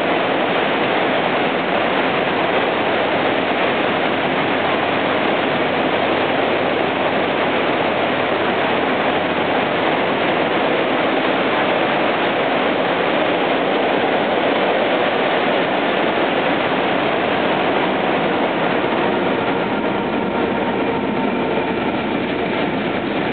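Steady, loud rushing rail noise at a train station. Near the end, the steady tones of a DF11 diesel locomotive join in as it pulls a through train into the station.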